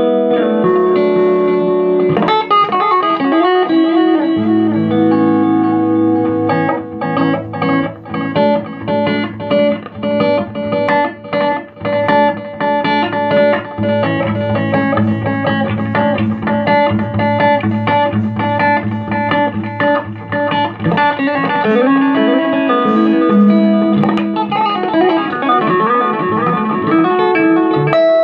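Electric guitar played through a 15-watt Marshall MG15 combo amp on its clean channel: picked notes and chords ringing out clearly, with short gaps between phrases in the middle.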